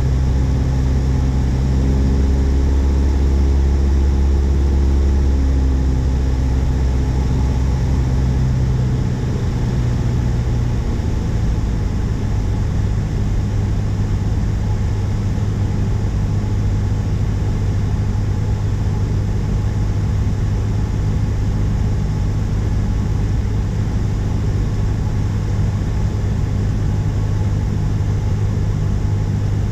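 Single-engine light plane's engine and propeller droning steadily inside the cabin, in flight. The engine note changes pitch and drops a little in level about ten seconds in.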